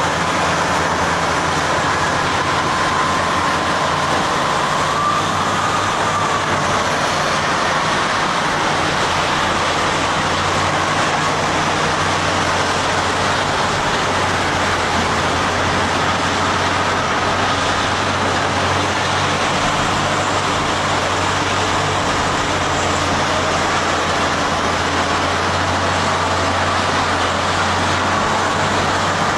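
Caterpillar 657 twin-engine wheel tractor-scrapers running in convoy: a steady, unbroken heavy diesel engine and machine noise.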